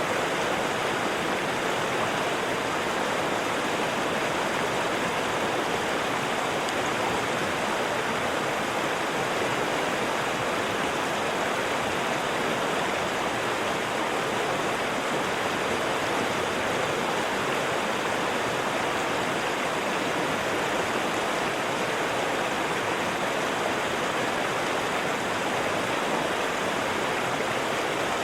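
A waterfall: water falling and splashing in a steady, unbroken rush.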